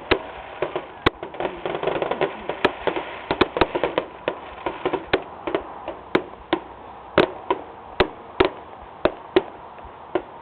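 Fireworks going off: a string of sharp bangs and pops at irregular intervals, crowded together over the first few seconds and then more spread out.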